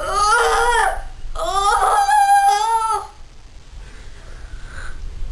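Domestic cat yowling twice, drawn-out distressed wails, the second longer, about two seconds. It is the protest of a cat being held wrapped in cloth. A quieter stretch of rustling follows.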